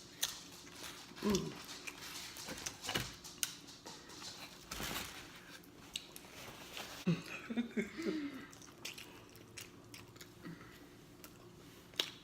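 Close-miked chewing and smacking of pizza, with many short wet mouth clicks and a few brief pitched vocal sounds about a second in and again around seven to eight seconds in.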